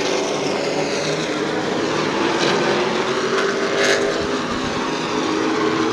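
A pack of Pro Late Model stock cars running at racing speed on a short oval, several V8 engines overlapping in steady, sustained engine notes.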